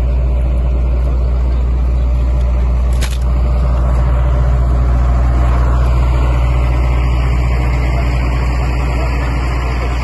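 A large vehicle engine running steadily close by, a loud low hum that does not change, with a brief click about three seconds in.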